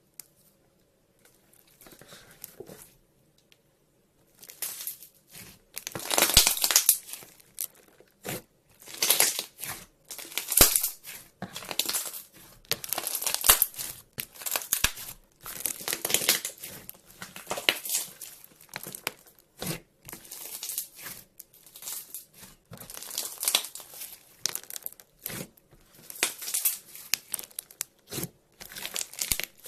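Slime being squeezed, stretched and pressed by hand, giving a run of crackling, sticky popping noises. It begins faintly and grows busier after a few seconds.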